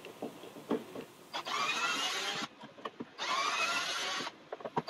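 Cordless drill-driver backing out casing screws in two bursts of about a second each, its motor whine rising through each burst. Small clicks and knocks come between the bursts.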